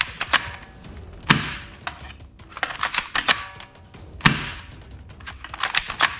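Plastic toy AK-47 rifle being handled and assembled: scattered clicks and knocks of plastic parts, with two heavier thunks, about a second in and again just past four seconds.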